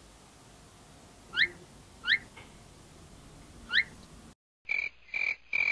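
Three short rising whistle-like chirps, well apart. A brief dropout follows, then a string of evenly spaced, identical frog-like croaks, about two a second.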